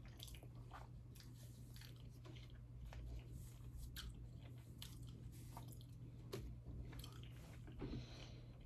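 Faint, close-up chewing of a mouthful of spaghetti bolognese: soft, irregular wet mouth clicks and squishes.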